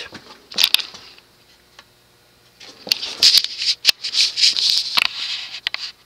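A couple of sharp clicks, then a quiet moment, then about three seconds of rustling and scraping peppered with small clicks: handling noise.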